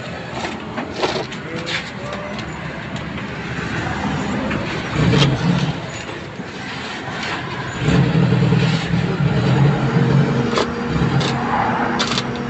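A motor vehicle's engine running, swelling louder about five seconds in and again from about eight seconds on, with scattered small clicks and taps.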